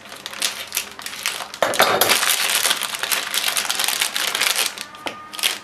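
Thin plastic bag crinkling and rustling as lemongrass stalks are pulled out of it. It gets louder about two seconds in and dies down near the end.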